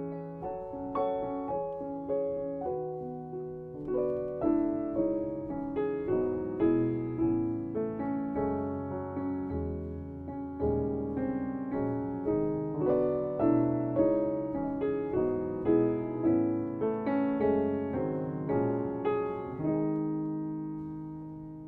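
Solo piano music: a gentle melody of struck notes, about two a second, each ringing and fading, ending on a long held chord that dies away.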